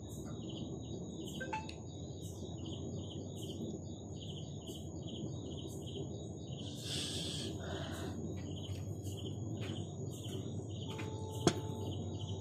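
Rhythmic high chirping, about three chirps a second, over a steady high whine, typical of insects or birds. A single sharp click comes about eleven seconds in.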